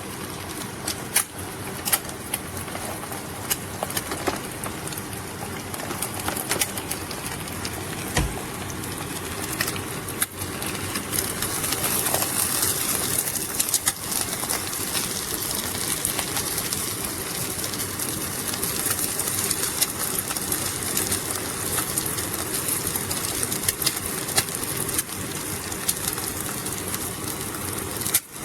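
Food frying in a hot pan: a steady sizzle with scattered crackles and pops, the hiss growing louder about twelve seconds in.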